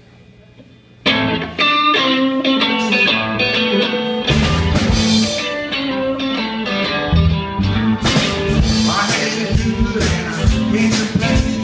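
Live band starting a blues-rock song's instrumental intro: guitar comes in suddenly about a second in, and drums join about four seconds in.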